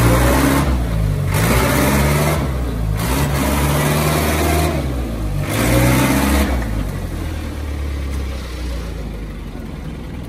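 Engine of a sand-laden delivery truck revving up and down about four times, each rev joined by a rushing noise, then running lower and steadier. Its rear wheel is sunk in mud: the truck is stuck and can't climb out.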